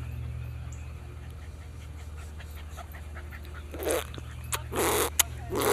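A baby fussing: a run of short whimpers and breathy huffs that starts about four seconds in, over a steady low hum.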